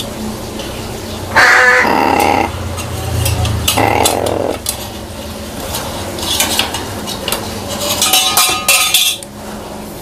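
Pet crow clattering and scraping its beak against a hand-held toy and the metal wire bars of its cage, with many sharp clicks and rattles. Two louder harsh bursts come about a second and a half and about four seconds in.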